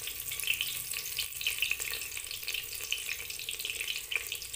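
Masala-stuffed eggplant frying in hot oil in a clay handi: a steady sizzle with scattered small crackles.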